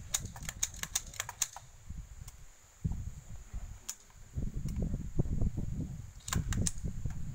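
Light, sharp mechanical clicks: a quick run of about ten in the first second and a half, a single click near the middle, and a short cluster of four or five near the end. These are not gunshots.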